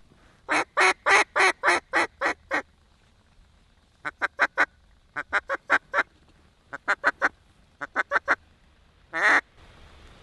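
Mallard duck call blown in a sequence of quacks: a run of about eight quacks that taper off, then several short quick groups of four or five quacks, and one longer drawn-out quack near the end.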